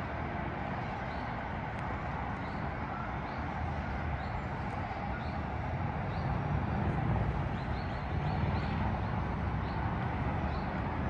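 City ambience of a high-rise apartment district: a steady low rumble of distant traffic that swells around the middle, with short high chirps repeating about once a second.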